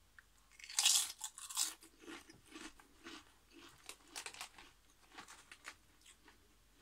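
A thin potato crisp bitten and chewed: a loud crunch about a second in, then a run of smaller chewing crunches that fade away over the next few seconds.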